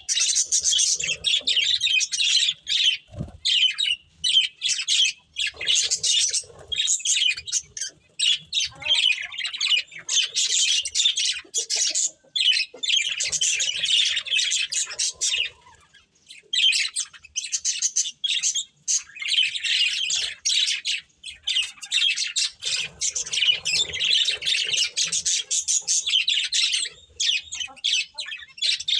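Budgerigars chattering and chirping without letup in rapid high-pitched bursts, with a few short pauses.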